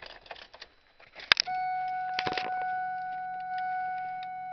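Car keys rattle and click, with one sharp click just over a second in, then a steady high electronic warning tone starts and holds, as when the key is put in and the ignition switched on.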